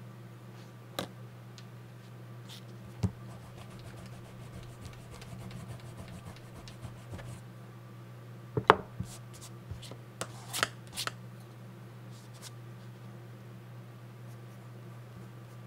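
Pencil and eraser being handled on a drawing pad: a few sharp taps and clicks with a stretch of light scratchy rubbing in the middle. A steady low hum sits underneath.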